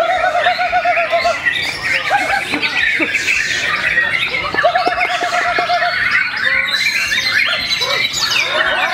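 Bornean white-rumped shama singing a loud, varied song of rapid whistles, chirps and trills, including a fast low rattling trill twice, with more birdsong overlapping it.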